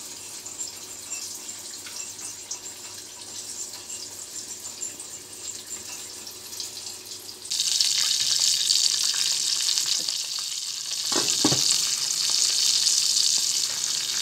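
Flour-coated halwa fish (pomfret) frying in hot oil in a pan, a steady crackling sizzle. It is quieter at first, then about halfway through it grows suddenly much louder and denser.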